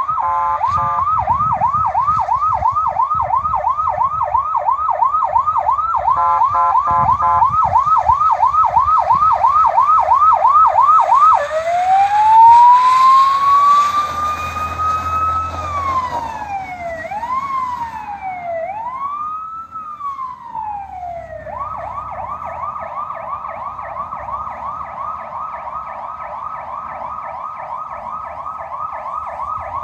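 Federal Signal PA300 electronic siren sounding through its speaker. First it runs a yelp of about three sweeps a second, twice broken by a short horn blast. About 11 s in, it changes to a manual siren that winds up slowly and dips and rises irregularly. About 21 s in, it switches to a much faster warble.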